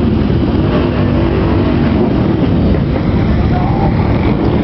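Motorcycle engines running at a loud, steady level, with people's voices mixed in.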